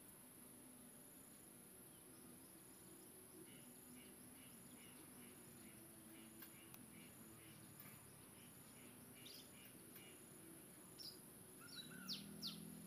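Near silence: faint outdoor ambience with a steady high-pitched insect drone and faint ticking, and a few short sharp chirps near the end.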